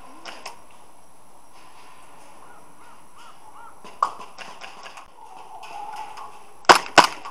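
Two sharp airsoft gun shots in quick succession near the end, with lighter clicks and knocks before them.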